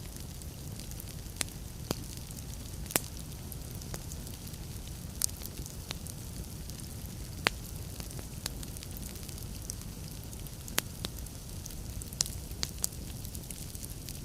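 Wood fire burning in a fireplace: a steady low rumble of flames with irregular sharp crackles and pops from the logs, a few of them louder than the rest.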